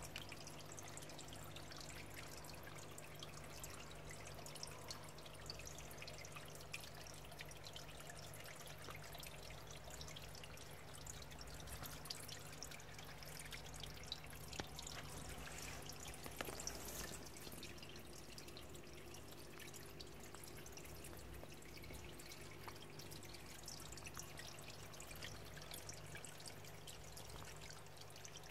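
Faint water trickling and dripping in a paludarium's water section, with many small drip ticks over a steady low hum.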